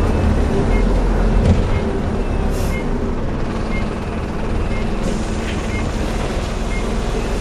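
Bus engine and its cooling fan running as the bus drives along, a steady whooshing drone heard from inside the saloon. A faint short beep repeats about once a second.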